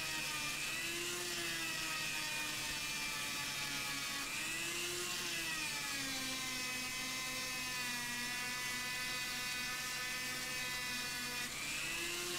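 Dremel rotary tool running with a small polishing wheel pressed against a watch case back to buff out scratches. It makes a steady high whine whose pitch rises and dips a little a few times as the pressure on the wheel changes.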